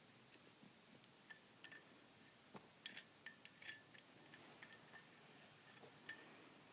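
Faint metallic clicks and clinks of a Zippo lighter being handled, several in quick succession from about a second in to about four seconds in, some with a short ring.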